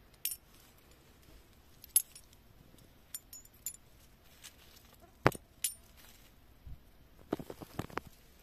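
Metal coins clinking against each other in a cupped hand as they are handled: separate clinks every second or two, then a quick run of clicks near the end.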